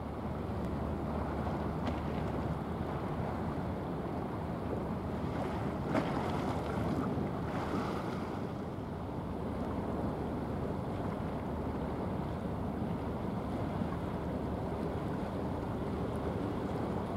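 Steady wind over a choppy sea, with wind buffeting the microphone and waves washing. A single short knock comes about six seconds in.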